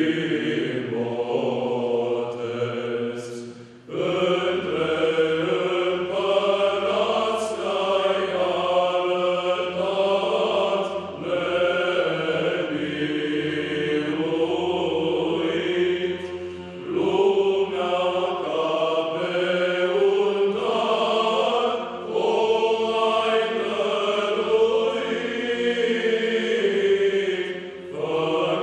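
Male choir singing Orthodox Byzantine chant unaccompanied, the melody moving over a steady low held drone note. It goes in phrases, with brief breaks about four seconds in and again a few times later.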